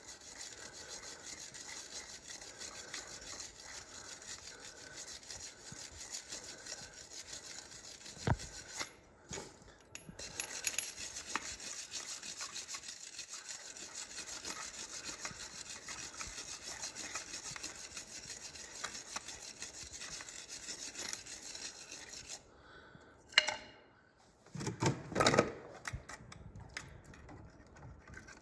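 Hand wire brush scrubbing a steel arbor and its sleeves in fast back-and-forth strokes, stripping off the loosened rust and slimy residue left by an electrolysis bath. There is a brief pause about nine seconds in. After the scrubbing stops, a sharp knock and a short burst of handling noise come near the end.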